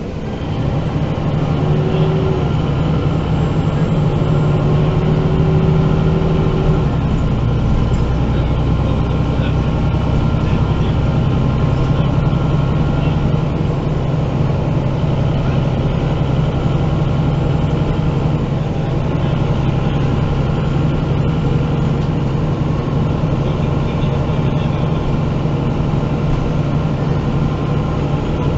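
MAN NG 313 articulated bus's diesel engine running steadily, heard from inside the bus while under way. The engine note drops in pitch about seven seconds in and then holds steady.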